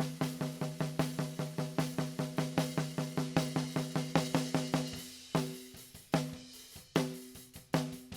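Recorded acoustic snare drum track played back unprocessed, with hi-hat and cymbal bleed: a quick, even run of hits, about four a second, then sparser hits after about five seconds. Each hit rings with a pitched tone, and the drum sounds out of tune with itself.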